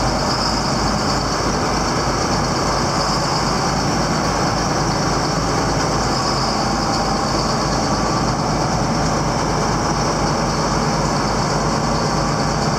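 Heavy farm-vehicle diesel engine running steadily at a constant speed, with a deep rumble and a steady high hiss over it.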